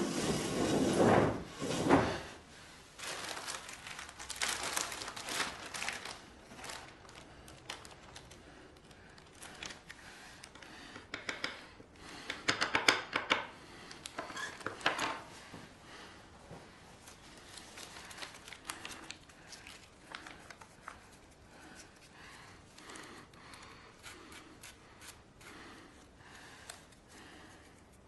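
Foley performance: a clear plastic bag crinkled and handled, with small scrapes and ticks of a little blade against a table surface. Heavier rustling and knocks come in the first two seconds, and the densest crinkling comes about halfway through.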